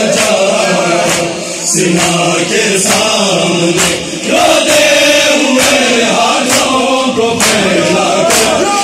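A large crowd of men chanting a mourning lament (nauha) in unison, with sharp hand strikes on bare chests (matam) landing about once a second.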